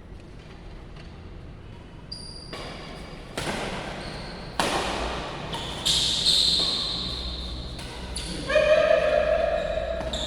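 Badminton rally in a large sports hall: sharp racket strikes on the shuttlecock roughly once a second, each ringing out in the hall's echo, with brief high squeaks in between. The hitting starts about two seconds in.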